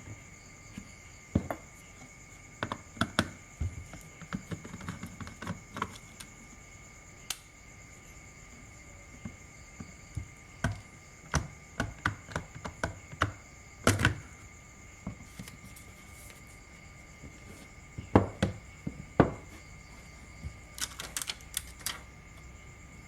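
Irregular clicks, taps and light knocks of hands and tools handling the plastic parts of an Asus X200M netbook during repair, coming in scattered clusters with a few louder knocks.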